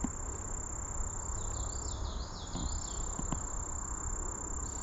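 Steady high-pitched insect drone of summer insects such as crickets. A bird sings a quick run of about eight chirping notes in the middle.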